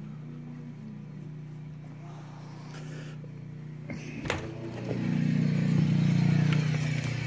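A steady low hum, then about four seconds in the click and knock of the front door's latch as the door is opened, followed by a louder steady low outdoor rumble.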